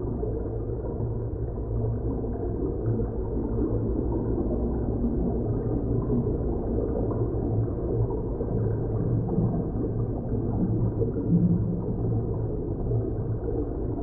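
Designed science-fiction ambience sound effect: a deep, dark, continuous drone with no sharp hits, swelling slightly about eleven seconds in.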